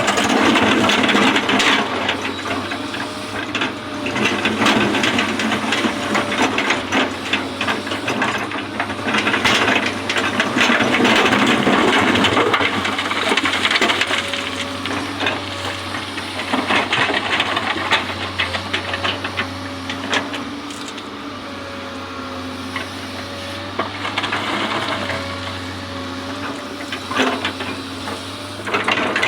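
Excavator at work: its diesel engine runs steadily under a hydraulic whine that rises and falls, while the bucket scrapes and clatters on the fill material with many short knocks.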